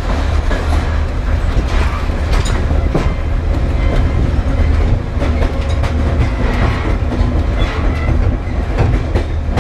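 El Chepe passenger train running along the track, heard from on board: a steady low rumble with irregular clicking and clatter of the wheels over the rails.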